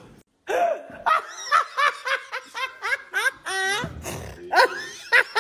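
A man laughing hard. It starts about half a second in as a run of short, high-pitched laugh bursts, about four a second.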